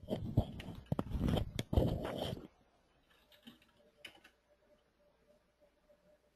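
Typing on a computer keyboard close to the microphone: a quick, dense run of keystrokes for about two and a half seconds, then a few faint clicks.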